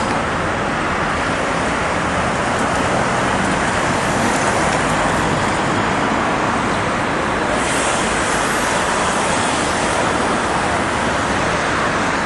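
Steady street traffic noise, an even wash of passing-car sound with no single vehicle standing out.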